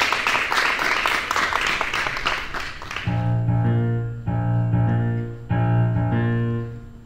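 Audience applause for about three seconds, then a piano starts the choir's accompaniment with four held chords.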